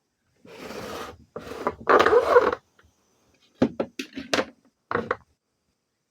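Handling noises: about two seconds of rubbing and scraping, then several short knocks and clunks.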